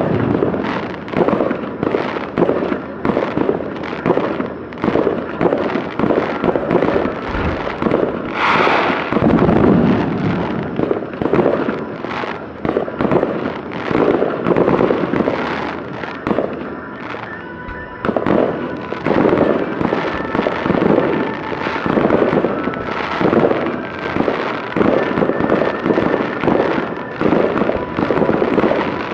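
Fireworks finale barrage: many aerial shells bursting and overlapping, several bangs a second, with crackling between them. The barrage thins briefly about two-thirds of the way through, then builds again.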